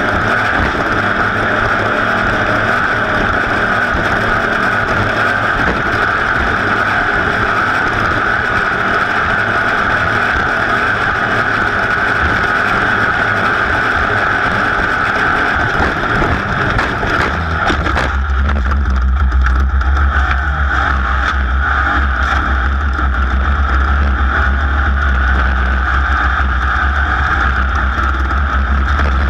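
A racing vehicle's engine running hard at steady high revs, heard from on board with a rushing hiss over it. About 18 s in, the hiss falls away and a deep steady low rumble takes over.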